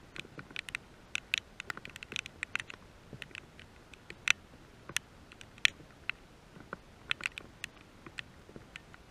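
Raindrops tapping on a GoPro camera's housing: irregular sharp ticks, a few loud ones among many faint.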